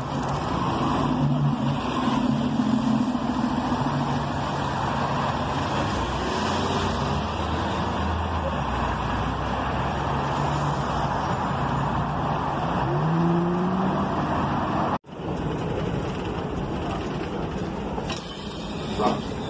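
City street traffic: a transit bus's engine running as it passes close by, then cars driving through an intersection, with one engine rising in pitch as it speeds up about two thirds of the way in. After a brief dropout, the rumble and rattling of a moving bus heard from inside, near its door.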